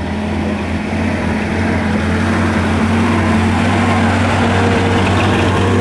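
Piper J-3 Cub's light-aircraft engine and propeller running steadily as the plane flies past and climbs, growing louder over the first few seconds.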